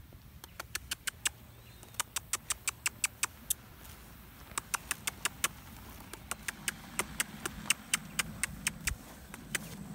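A mare and foal grazing close by: crisp snaps of grass being torn off by the teeth, in runs of about three or four a second with short pauses between runs.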